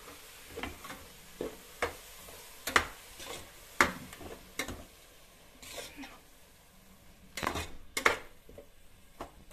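A spatula stirring thick ground masala paste into fried masala in a metal pot, knocking and scraping against the pot at irregular intervals over a faint sizzle.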